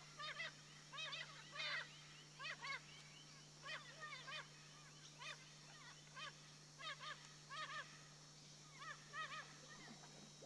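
Birds squawking: short, arched, honking calls repeated in pairs and short runs about once a second, over a faint steady low hum.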